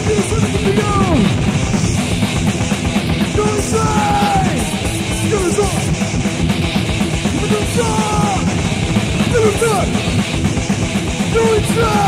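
Thrash metal demo recording: a band playing with distorted guitars, bass and drums, and a line sliding up and down in pitch over the dense, steady band sound.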